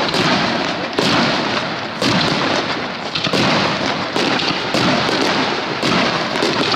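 Starmine fireworks barrage: aerial shells launching and bursting in quick succession, a sharp report about once a second over a continuous crackle and rumble.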